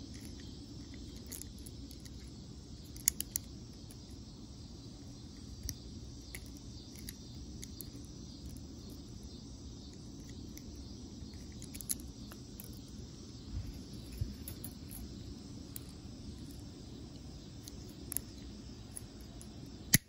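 A Gerber Diesel multitool's plier-head wire cutters snipping thin wire: a few sharp, scattered clicks over a steady low background hum, the loudest right at the end.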